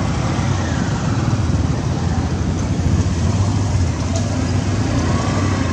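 Steady low rumble of road traffic, unbroken throughout.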